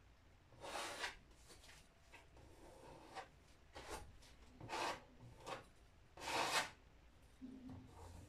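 Hand rubbing across the surface of a painted panel: about six irregular scraping strokes of different lengths, the longest and loudest one near the end.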